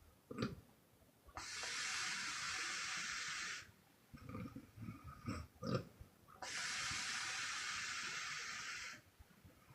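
A sleeping young woman snoring with loud puffed exhales: two long hissing breaths out, each about two seconds, with short low snorts on the breaths in between.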